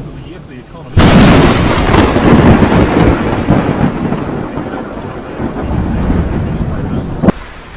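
Thunderclap from a lightning strike: a sudden loud crack about a second in, then rumbling that slowly fades over several seconds, with rain underneath. It cuts off suddenly near the end.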